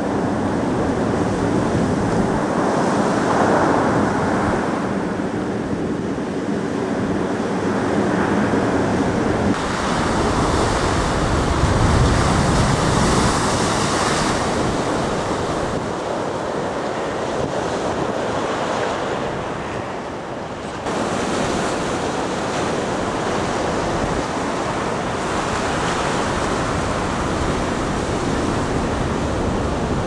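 Large storm waves breaking and surging in a steady roar that swells and ebbs, loudest about twelve seconds in, with wind buffeting the microphone.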